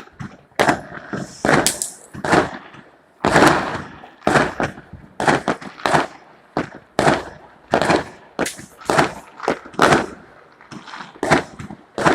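Fireworks and firecrackers going off in an irregular series of sharp bangs, about one to three a second, each trailing off in a short echo.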